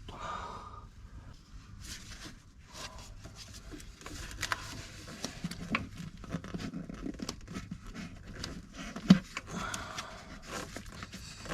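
Scraping, rustling and small clicks of objects being handled, with one sharper knock about nine seconds in.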